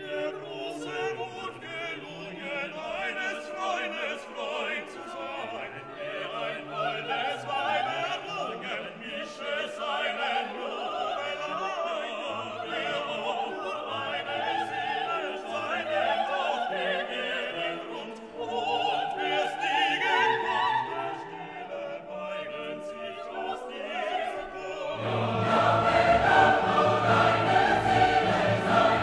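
Background classical music: operatic singing with an orchestra, growing fuller and louder with deeper bass near the end.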